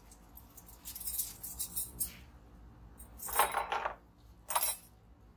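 Small metal brake parts clinking and rattling against the front caliper bracket of a truck's disc brake as they are handled, with light scattered clicks and then two louder metallic rattles, about three and four and a half seconds in.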